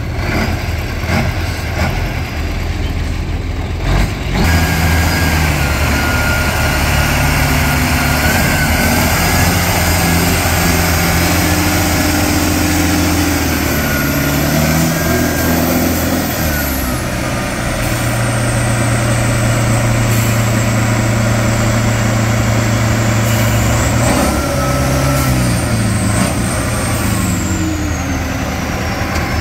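Engine of a tube-framed trial truck working under load, its revs rising and falling over and over as it crawls through mud and climbs a bank, with a stretch of steadier revs partway through. A high whine falls in pitch twice, after the middle and near the end.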